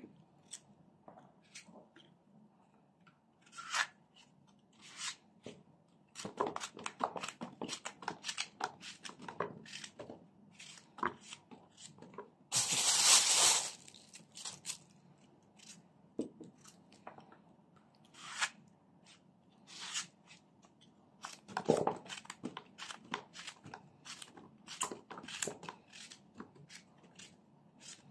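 Paring knife cutting fresh zucchini into small chunks by hand: a run of short, crisp cutting clicks, with pieces falling into a plastic bowl. Near the middle a louder rustling noise lasts about a second and a half.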